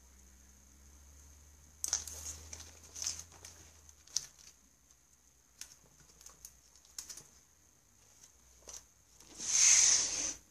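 Paper and books handled on a wooden desk: pages of a paperback workbook rustle and tap as it is opened and smoothed flat. Near the end comes a louder rustle of about a second as a book and a spiral notebook are moved.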